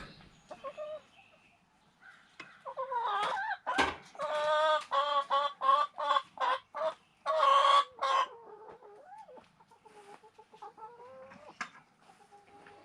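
Chicken calling: a run of quick clucks from about two seconds in, ending in a longer drawn-out call near eight seconds, then fainter clucking.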